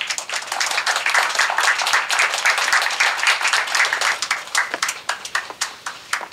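Audience applauding: many hands clapping, densest through the middle and thinning to scattered claps near the end.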